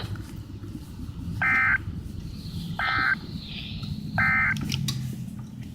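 Emergency Alert System end-of-message signal: three short bursts of digital data tones, about a second and a half apart, marking the end of the alert.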